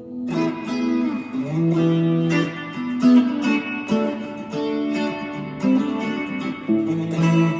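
Strat-style electric guitar played: a run of single plucked notes and chords, each new note or chord starting every half second or so.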